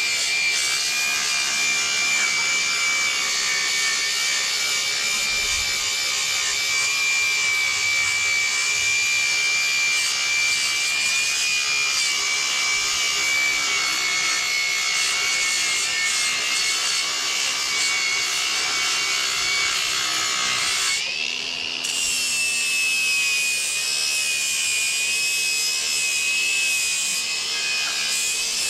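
Ryobi cordless angle grinder running against steel plate, grinding off rust and paint, with a steady high whine over the grinding noise. About two-thirds of the way through it briefly eases off, then spins back up with the whine a little higher.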